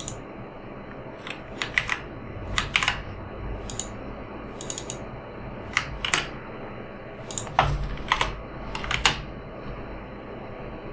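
Computer keyboard keys being typed in short scattered runs of one to three strokes with pauses between, over a steady low background hum.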